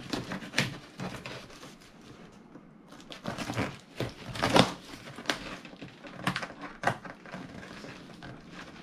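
Scattered knocks, taps and rustles of things being handled and unpacked from a box, the loudest knock about four and a half seconds in.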